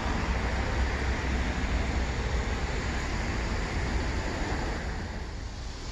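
Steady outdoor background noise: a low, fluttering rumble with a hiss over it, easing slightly near the end.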